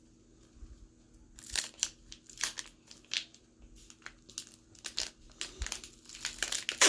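Crinkling and tearing of a foil Pokémon booster pack wrapper being torn open by hand: irregular crackles that begin about a second in and go on, getting louder near the end.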